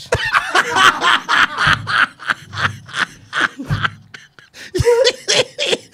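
Men laughing hard together in quick, pulsing bursts, with a short lull about four and a half seconds in.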